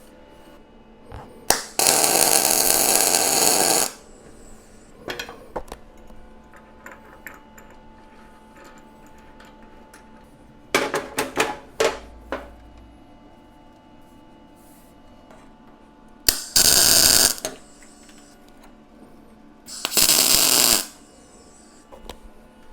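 Welder tack-welding steel plate: three loud bursts of about one to two seconds each, near the start, about seventeen seconds in and about twenty seconds in, with a run of very short zaps about eleven seconds in.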